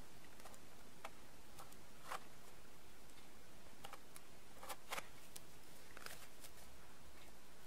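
Faint irregular clicks and scratches of a small cardboard knife box being handled: its seal is slit with a knife blade and its end worked at by hand.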